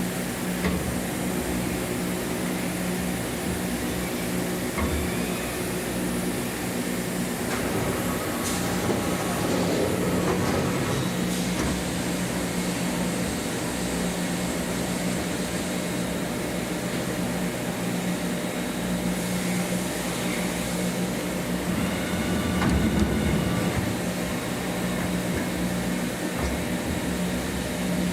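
Steady mechanical hum of running machine-shop machinery, with brief higher whining tones about a third of the way in and again near the end.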